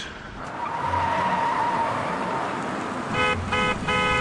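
A car's engine and tyre noise rises as it drives, then a car horn gives three short honks about half a second apart near the end.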